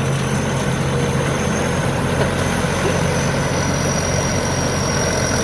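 Rice combine harvester's Hino J08C inline-six diesel engine running steadily, a deep hum with a thin, steady high whine over it.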